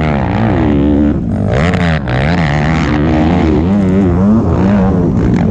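Honda CRF250R dirt bike's single-cylinder four-stroke engine revving hard, its pitch rising and falling as the throttle is worked. The throttle is briefly chopped about one second and two seconds in.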